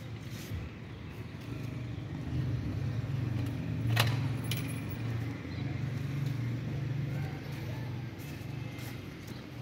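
A sharp metallic click about four seconds in, then a lighter one just after, as the handle and lock of an aluminium door are worked. Under it, a low engine hum swells and fades.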